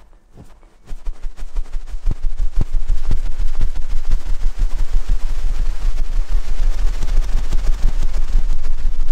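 Loud close-miked scratching and rubbing on a microphone: dense, irregular crackling clicks over a deep rumble, starting about a second in.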